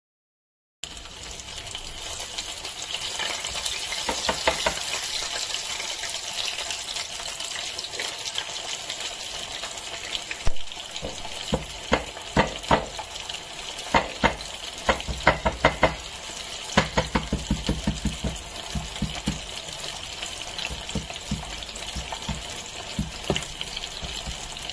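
Hot oil sizzling steadily as flour-coated chicken legs deep-fry in a pan, starting about a second in, with sharp crackles and pops that come thickest from the middle onward.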